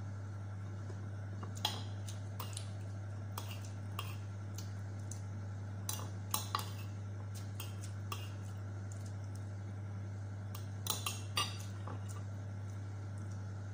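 Metal spoon clinking against a ceramic soup plate, about a dozen scattered clinks with a quick run of three about eleven seconds in, over a steady low hum.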